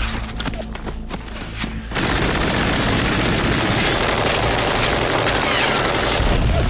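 Rapid automatic gunfire, then about two seconds in a sudden loud, steady rush of a fast patrol boat's engines and spray, with the gunfire carrying on over it.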